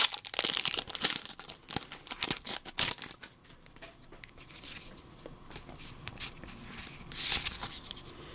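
Pokémon booster pack's foil wrapper being torn open and crinkled by hand: dense sharp crackling for the first few seconds, then quieter rustling, with another short burst of crinkling about seven seconds in.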